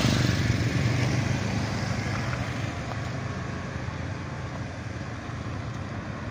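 Engines running with a steady low hum under a rushing noise, slowly growing fainter.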